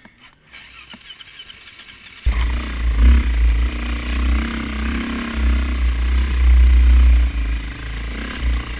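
Dirt bike engine starting up about two seconds in, then running steadily with rises and falls in revs as the bike climbs the trail.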